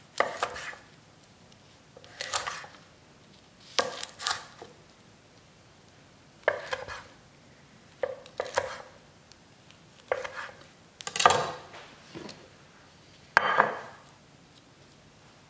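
Chef's knife slicing through a nori-wrapped sushi roll and knocking on an end-grain wooden chopping board: about eight separate cuts, one every second or two.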